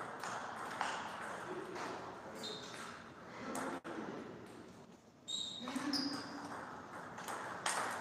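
Table tennis ball clicking off the rackets and the table during a rally, the sharp hits coming irregularly about a second or two apart, with a couple of short high squeaks.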